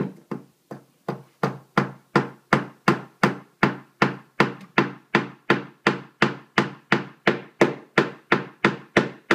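A child hammering a nail into a small block of wood with a hammer: a steady run of quick blows, about three a second.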